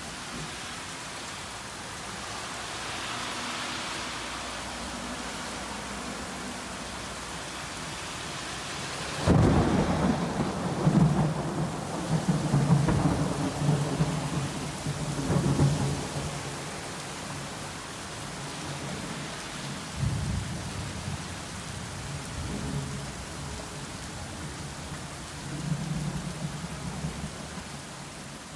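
Heavy rain pouring onto a road and pavement, with thunder. A sharp clap comes about a third of the way in and rolls on as long rumbling, and more rumbles follow later.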